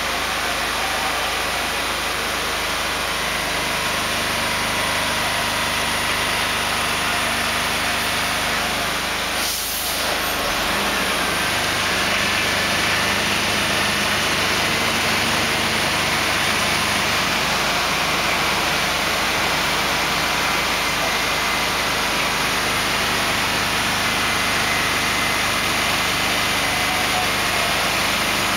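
Heavy-haul transporter's engine running steadily as the multi-axle trailer carrying a bridge segment rolls slowly past, growing slightly louder about eleven seconds in.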